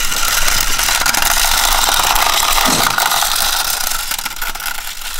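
A metal car stereo head unit dragged on a string along a concrete sidewalk, its case scraping and rattling steadily over the pavement.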